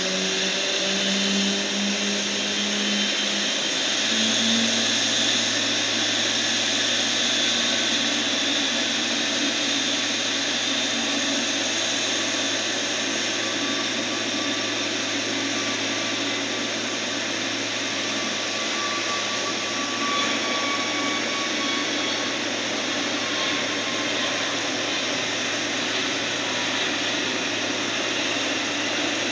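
Boeing 777-300ER's GE90-115B turbofan engines running during pushback: a steady whine over a rushing hiss, with a low hum settling in about four seconds in.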